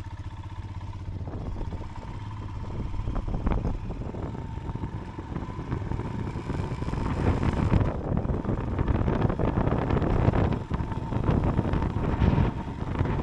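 Royal Enfield motorcycle engine running as the bike pulls away and gathers speed, growing louder as it goes.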